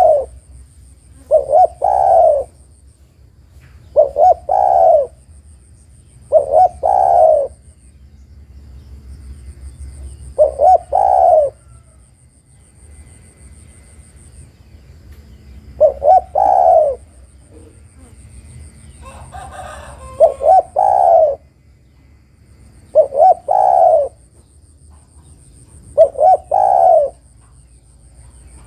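A female spotted dove cooing, calling to a male. Each phrase has a couple of quick notes and then a longer, falling coo, and the phrase repeats about nine times, every two to three seconds, with one longer pause midway.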